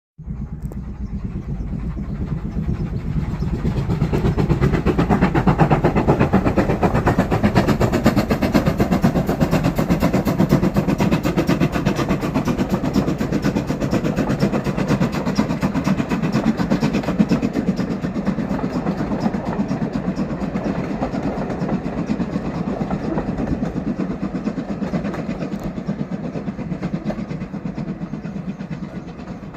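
Steam train running on the rails, a loud steady rumble with rapid clatter. It grows loudest about six seconds in, then slowly fades away.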